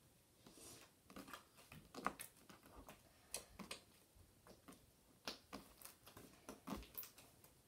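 Slime being kneaded and pressed by hand, making irregular soft clicks and pops, a few to several a second.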